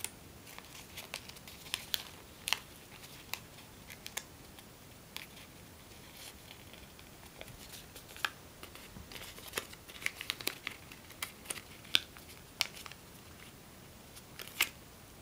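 A square of origami paper being handled and folded by hand: scattered crisp crinkles and snaps of the paper as it is bent and creased, coming more often about two-thirds of the way through.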